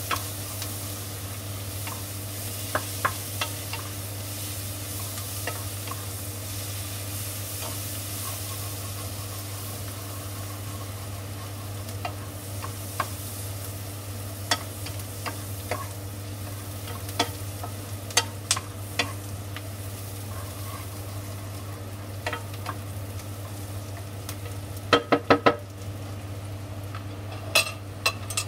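Sliced onions sizzling as they fry in a non-stick pan, stirred with a wooden spatula that knocks against the pan now and then. Near the end comes a quick run of louder knocks, and the sizzle then drops away.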